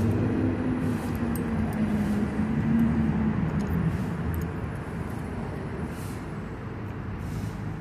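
Low rumble of a motor vehicle engine running nearby, with a steady engine hum that sinks a little in pitch and fades out about three and a half seconds in, leaving a duller rumble.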